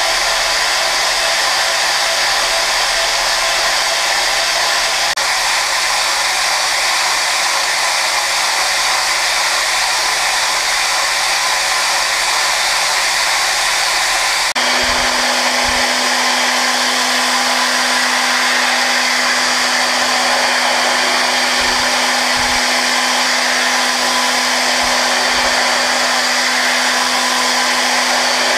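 Okuma GENOS M560-V vertical machining center's 15,000 rpm spindle running while its cutter mills hardened S7 tool steel at 56 Rc: a steady rushing hiss with several steady tones over it. About halfway through the sound shifts suddenly and a low steady hum comes in.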